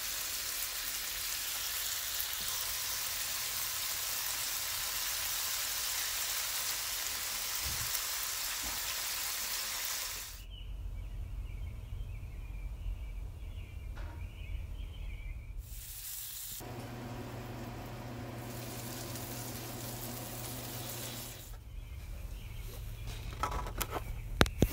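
Marinated chicken leg quarters sizzling in an oiled nonstick frying pan, a steady hiss that cuts off abruptly about ten seconds in. After that it is quieter: a low hum with faint high chirps, and a few sharp clicks near the end.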